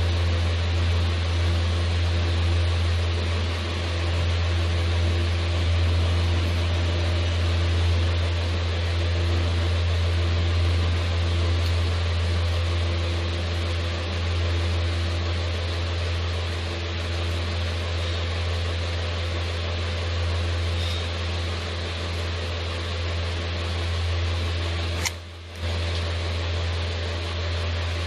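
A steady low hum with an even hiss over it, unchanging, cutting out for a moment about 25 seconds in.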